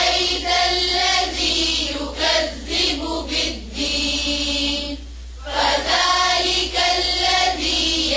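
Chanted Quran recitation in Arabic: a learner reciting the verses from memory, with a short break about five seconds in.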